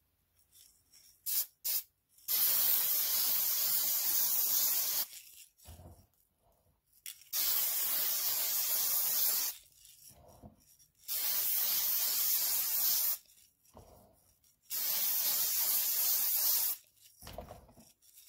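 Aerosol can of Krylon metallic chrome spray paint spraying in four hissing bursts of about two to three seconds each, with short pauses between as the glass is turned.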